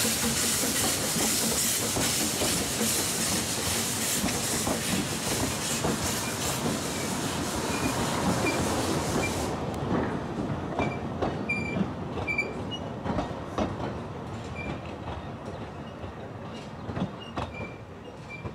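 Narrow-gauge steam train: a loud steam hiss that stops abruptly about halfway through, then short squeals from the wheel flanges and clicking of wheels over rail joints, getting fainter as the train moves away.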